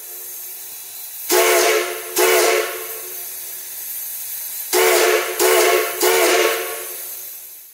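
Steam whistle giving two short blasts, then after a pause three short blasts, each a chord of several tones that scoops up in pitch as it opens, over a steady hiss of steam.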